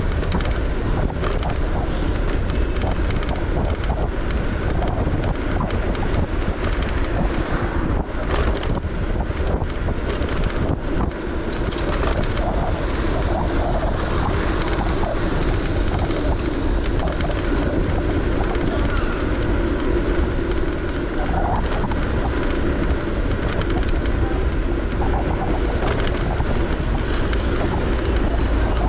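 Car driving: a steady deep road rumble under wind noise on the microphone.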